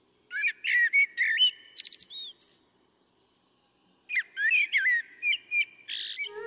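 A songbird singing two quick phrases of varied, sliding whistled and chirped notes, with a pause of about a second and a half between them.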